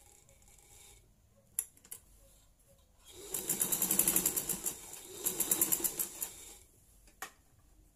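Sewing machine stitching fabric in two quick runs of rapid, even stitches, starting about three seconds in with a brief slowdown around five seconds. A sharp single click comes before and after the stitching.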